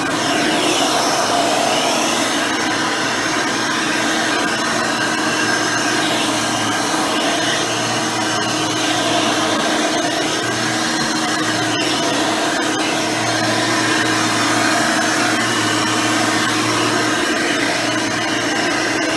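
Hoover Elite 600 upright vacuum cleaner, fitted with a modern 7-amp motor and 20-blade fan, running steadily as it cleans with its dual-row brush roll, the motor holding an even pitch.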